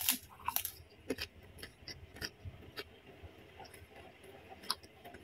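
Close-up crunching of kerupuk (Indonesian prawn crackers) being bitten and chewed: scattered sharp, crisp crackles, the loudest at the first bite and again near the end. The crackers have gone a little soft from sitting out in the air.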